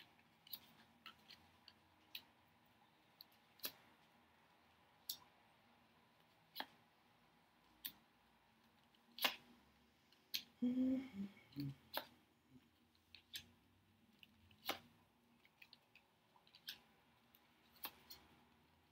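Tarot cards being shuffled and laid out by hand: irregular crisp snaps and flicks of card stock, some sharper than others. A short hum of a voice comes about halfway through.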